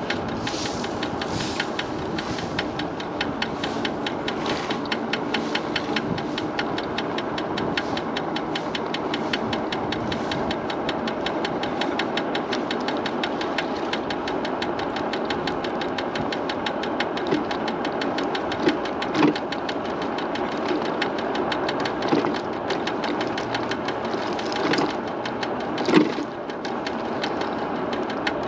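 MiniPro Mi716 electric scooter riding along with a fast, even knocking from the front wheel, which the rider suspects is a problem with the wheel. A few louder bumps come in the second half.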